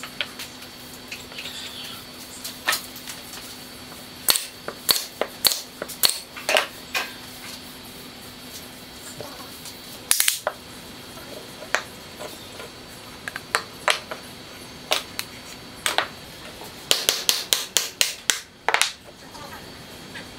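Scattered sharp knocks of wooden pieces on a wooden workbench, then a quick run of about ten hammer strikes on a glued wooden joint near the end.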